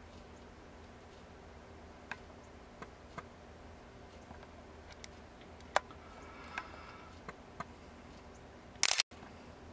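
Faint camera handling noise: a low steady hum with scattered light clicks and taps. A short burst of hiss near the end cuts off abruptly.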